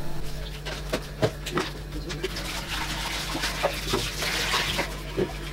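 Bananas being peeled and dropped into a plastic blender jar: scattered light knocks and clicks, with a rustle of peel being torn a few seconds in, over a steady low hum.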